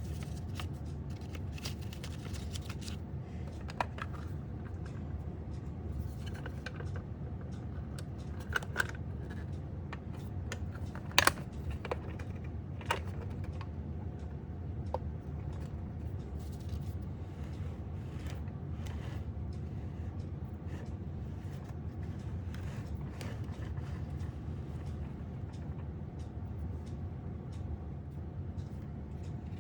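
A few light clicks and taps, as of small objects being handled and set down, over a steady low hum.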